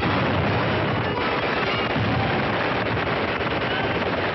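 Cartoon soundtrack sound effects: a sudden crash, then a continuous noisy din, with music faint beneath it.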